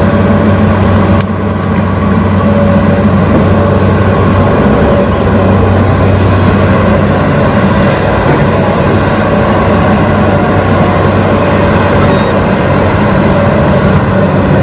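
Engine sound of a remote-control Hitachi excavator, a steady diesel-like drone running continuously after start-up.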